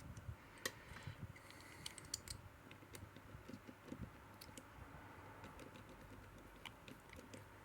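Faint, irregular small clicks from the combination wheels of a Sezam lock being turned and jiggled, feeling by their play for the true gate.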